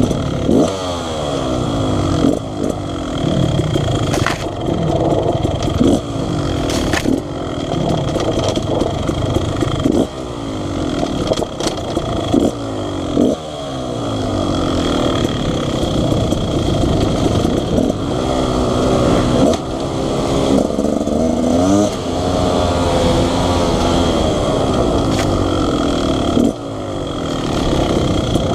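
Beta Xtrainer 300 two-stroke dirt bike engine under way on a trail, its pitch rising and dropping back again and again as the rider accelerates and eases off, with occasional knocks and clatter.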